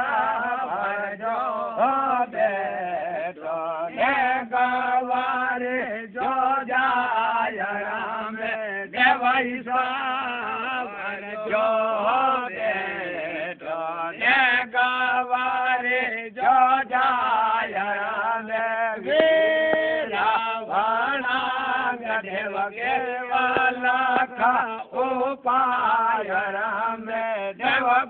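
A man chanting a sung recitation in one continuous voice, its pitch wavering in ornamented turns, with one long held note about two-thirds of the way through.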